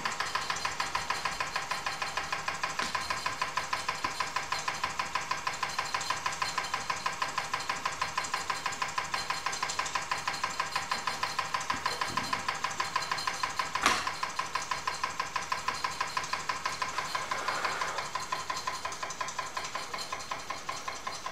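Wilesco D6 toy steam engine running steadily under its own steam, with an even chuffing beat of about five a second. It is belted to a line shaft driving a model drill press and grinder. One sharp click comes about 14 seconds in, and the beat gets a little quieter near the end.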